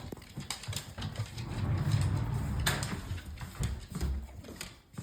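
Pit bull moving about on a hard floor: scattered, irregular clicks and taps of its claws, with a stretch of low rubbing noise about two seconds in.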